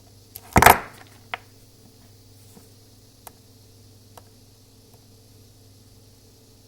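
A short loud clatter about half a second in, then a sharp click and a few light ticks: a small watchmaker's screwdriver and the disassembled terminal parts being handled, the screwdriver touching the terminal's steel contact plate.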